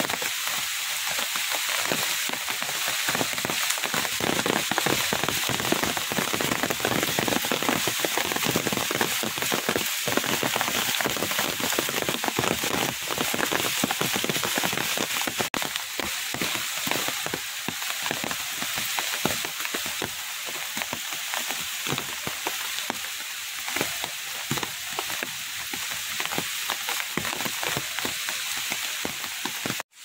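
Steady rain falling on leaves and floodwater, a dense patter of drops. It drops a little in level about halfway through.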